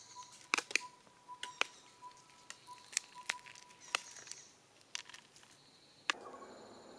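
Dry corn kernels dropped by hand into a bamboo tube trap and onto a log, making a string of sharp, separate clicks as each one lands.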